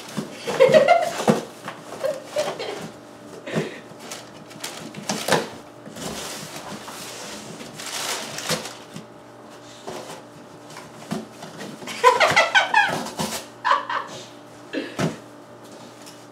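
Brown packing paper rustling and crinkling and a cardboard box knocking as it is handled, with the densest rustling a third to halfway through. Short vocal sounds come about a second in and again around twelve seconds.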